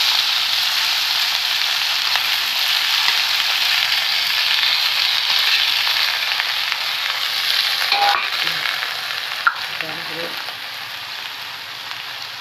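Chopped cauliflower and mixed vegetables sizzling loudly as they hit hot oil in a steel kadai, the frying hiss slowly dying down as the pan cools. One sharp click about three-quarters of the way through.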